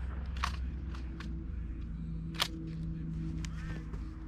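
A steady low hum with several short sharp clicks and one louder crack about two and a half seconds in, during a lull between shotgun shots in a dove field.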